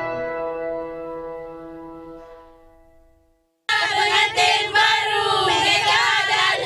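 Background music's last chord ringing out and fading away to silence. About three and a half seconds in, a group of people starts shouting and cheering all at once, high voices sliding up and down.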